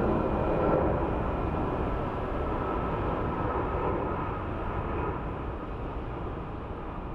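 Airport ground noise: a steady rumble of jet aircraft and service vehicles with a faint high whine, fading out slowly.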